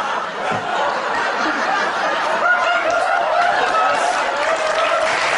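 Studio audience laughing, a steady wash of many voices.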